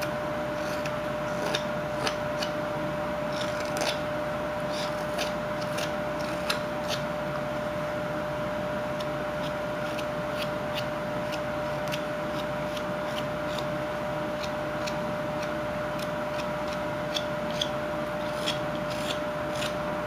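Whittling knife paring small chips off a wooden carving: a scatter of short, faint scrapes and clicks. A steady hum with one constant tone runs underneath.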